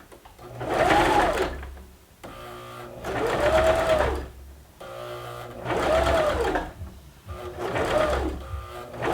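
Baby Lock Zeal sewing machine stitching a seam in four short runs, the motor speeding up and slowing down in each run, with short pauses between.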